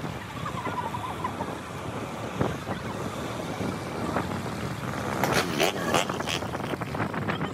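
Car driving slowly along a town street: steady road and engine noise, with a handful of sharp clicks or knocks about five to six seconds in.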